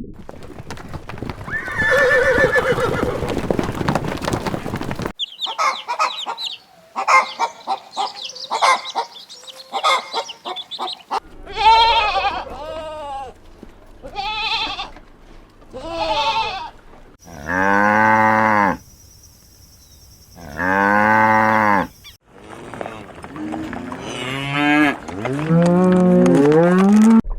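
A string of different farm-animal calls cut one after another, with two long, low calls about two-thirds of the way through and rising calls near the end.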